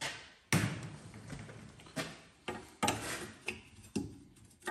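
Several short, sharp knocks and clicks, about five of them and irregularly spaced, the loudest about half a second in: tools and metal parts being handled during work on a car's drum brake.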